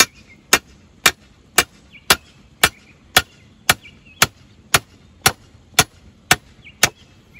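A hammer driving a 5/8-inch steel rebar stake into the ground: about fourteen sharp metal-on-metal strikes at an even pace of about two a second, stopping shortly before the end.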